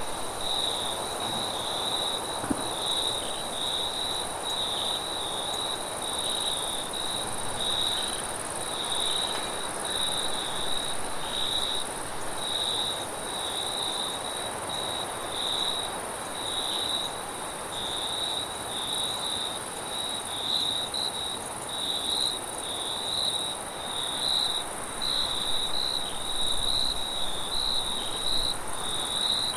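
Crickets chirping in a steady, even rhythm over a continuous hiss of wind, with a fainter high steady insect trill behind them.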